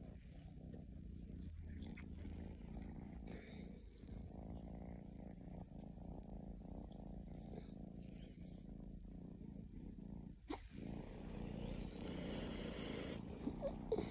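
A domestic cat purring steadily while being cuddled and stroked, a contented purr.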